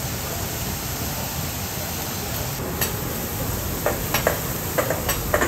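Food sizzling on a hot steel teppan griddle, with metal spatulas scraping and clacking against the griddle about six times in the second half.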